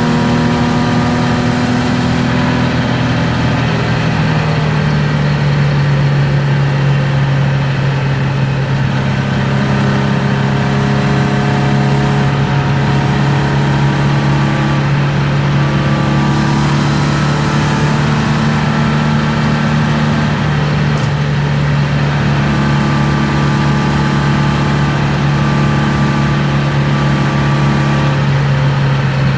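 BMW M50B25 inline-six with aftermarket headers and exhaust droning at steady revs at Autobahn speed, heard from inside the cabin over road and wind noise. The engine note changes about four seconds in, then holds steady.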